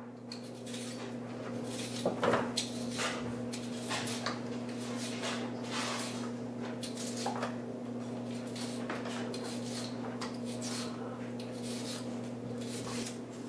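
Vegetable peeler scraping strips off a boiled jicama in many short, irregular strokes, over a steady low hum.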